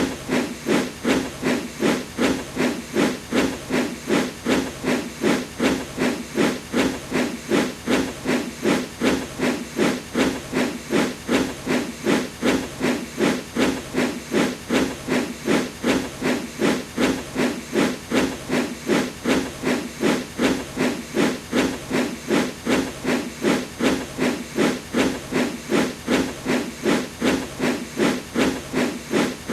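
Steam locomotive puffing sound effect: an even, steady chuffing of exhaust steam, a little under three puffs a second, with hiss underneath.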